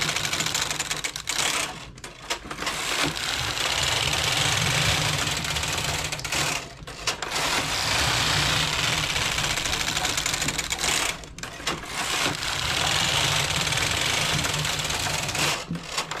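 A domestic knitting machine's carriage, coupled to the ribber, is pushed slowly back and forth across the needle beds, knitting tuck stitch from a punch card. It makes a steady mechanical noise on each of about four passes, each some four seconds long, with short breaks where the carriage reverses at each end. The tuck setting on both beds makes the carriage heavy to push.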